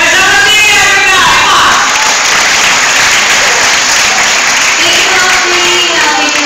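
Audience applauding, starting suddenly, with voices and cheering mixed in near the start and again near the end.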